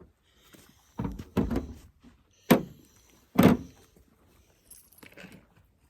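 Ruger Max-9 9mm pistol fired for the first time: four shots, two softer ones in the first half and two loud, sharp ones about a second apart in the middle.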